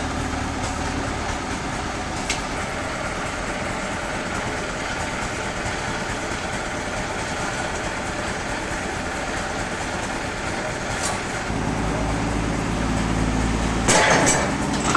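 Sawmill machinery running steadily. After about eleven seconds a deeper engine hum comes in, and near the end there is a loud clatter.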